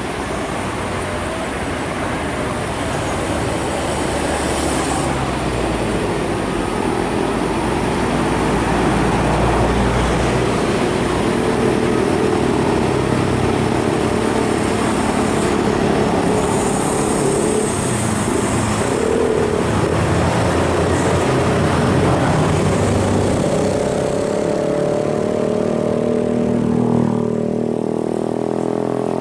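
Road traffic on a bend: heavy diesel truck engines, including a red Hino cargo truck's, running steadily under load, with cars and motorcycles passing. Over the last few seconds an engine's pitch rises as it accelerates.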